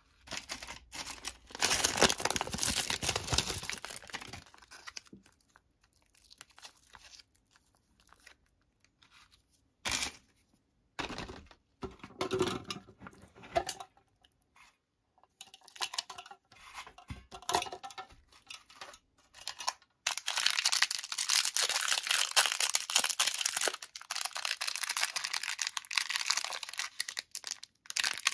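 Plastic candy wrappers crinkling and tearing in bursts with pauses between as sweets are handled and unwrapped, with a sharp click about ten seconds in. From about twenty seconds in, a lollipop's plastic wrapper crinkles steadily as it is peeled off.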